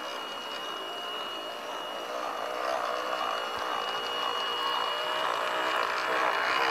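16mm-scale garden-railway diesel-outline locomotive and tipper wagons running along the track, a steady mechanical running sound that grows louder as the train approaches and passes close by.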